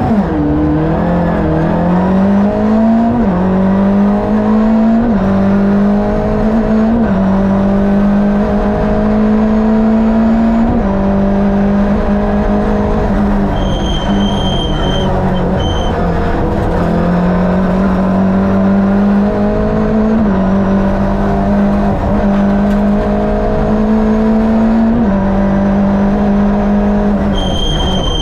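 Rally car's Fiat two-litre twin-cam eight-valve four-cylinder engine heard from inside the car, pulling hard through the gears. The revs climb in long rises and drop sharply at each shift or lift, about ten times. A brief high steady tone sounds twice, about halfway through and again near the end.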